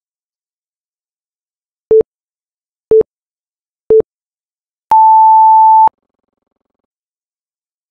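Interval timer countdown beeps: three short, lower beeps a second apart, then one longer, higher beep of about a second signalling the start of the work interval.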